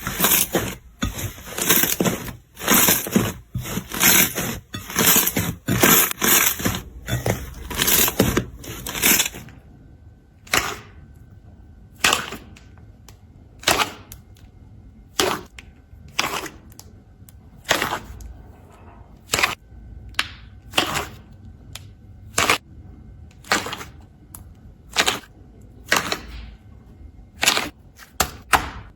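Slime being worked by hand, clicking and popping. The first few seconds are a dense run of crackling pops; after that come single sharp pops about once a second.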